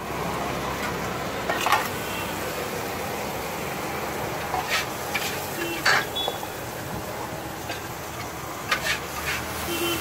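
Knife slicing tomatoes on a wooden chopping board, with a few sharp taps of the blade and clinks of steel plates, over a steady background hiss.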